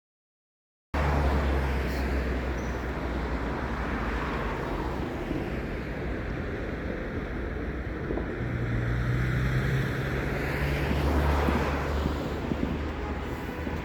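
Steady low rumble with wind buffeting the microphone, starting suddenly about a second in, with a broad swell of noise near the end.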